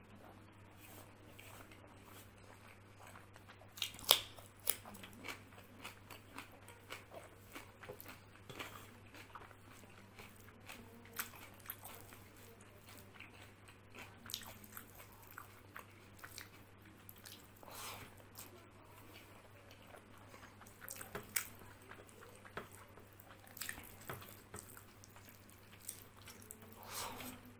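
Close-up mouth sounds of a person chewing rice and chickpeas eaten by hand, with wet smacks and small clicks scattered irregularly throughout. The sharpest click comes about four seconds in.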